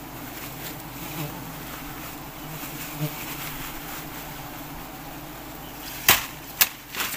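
A swarm of giant honey bees buzzing around their open comb, a steady low hum. Two sharp knocks about six seconds in.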